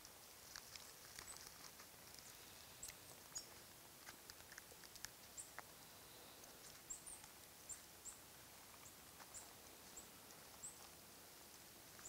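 Near silence: faint scattered clicks as a pocketknife cuts into and breaks open a bolete mushroom, with short, very high chirps of small birds about once a second.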